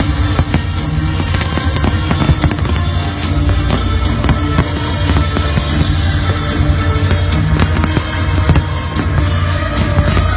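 Fireworks crackling and popping in rapid, dense bursts over loud background music.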